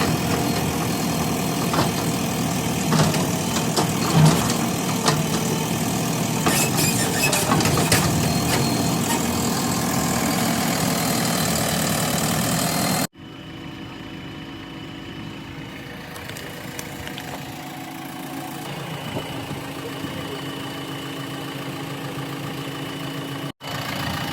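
JCB 3DX backhoe loader's diesel engine running while it digs, with scattered knocks over it. About thirteen seconds in the sound breaks off abruptly and goes on as a quieter, steadier engine hum.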